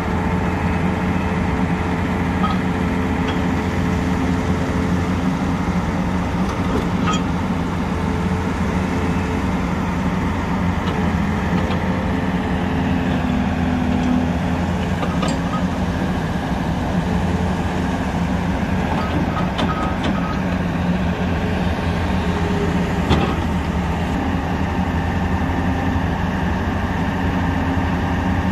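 Volvo EC380DL hydraulic excavator's diesel engine running steadily under hydraulic load while the boom, stick and bucket are worked, with a few light knocks along the way.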